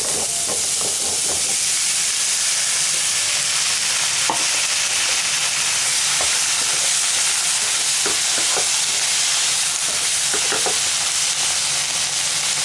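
Half-boiled, blanched cauliflower florets sizzling steadily in a little hot oil in a non-stick frying pan as the moisture in them cooks off, a little louder as they go in. Short scrapes and taps come from a wooden spatula stirring them.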